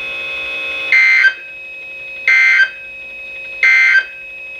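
Three short bursts of warbling EAS digital data tones from a weather radio, spaced about a second and a half apart: the Emergency Alert System end-of-message code that closes the warning broadcast. A faint steady tone hums between the bursts.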